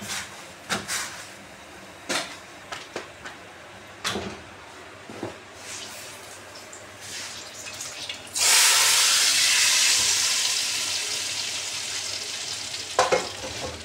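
A few light knocks and clinks, then a hot-oil tadka of cumin, garlic and chillies poured onto a bowl of whole masoor daal: it sets off a sudden loud hiss and sizzle that slowly dies away over several seconds.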